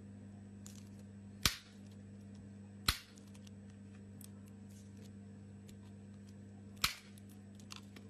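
Sharp snips of a cutter biting into a plastic shotgun shell to open it: three in all, about a second and a half apart at first and once more near the end. They sound over a steady low hum.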